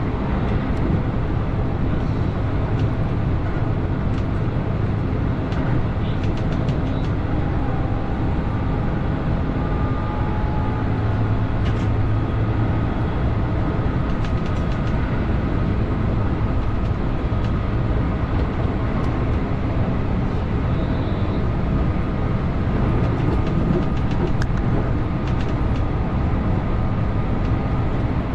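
Keihan 8000 series electric train running along the line: a steady rumble of wheels on rail with a low hum, faint tones that come and go, and scattered light clicks.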